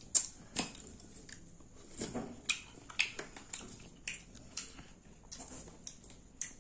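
Eating green mussels in sauce: irregular wet clicks and smacks as the shells are pulled apart with sauce-covered fingers, mixed with chewing.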